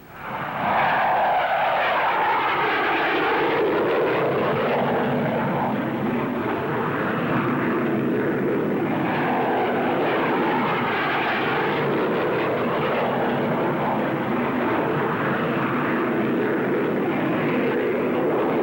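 English Electric Lightning jet fighter's engines running loudly as it flies low, high-G turns, a steady jet noise with a slowly shifting, swishing tone as it passes. The sound comes in abruptly about half a second in.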